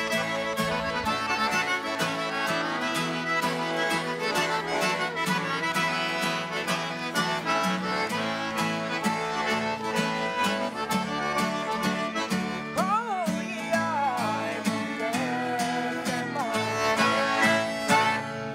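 Lively band music with guitar and accordion over a steady beat, with sliding melody notes about two thirds of the way through.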